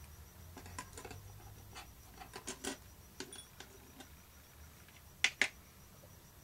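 Plastic nail-polish swatch sticks being handled and swapped: scattered light clicks and taps, with two sharper clicks in quick succession about five seconds in.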